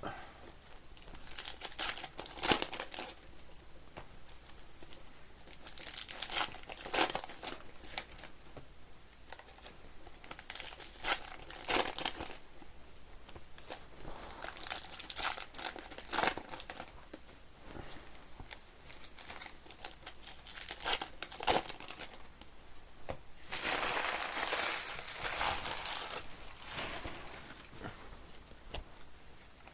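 Trading card pack wrappers being torn open and crinkled, in repeated short bouts of rustling every few seconds, with cards being handled in between.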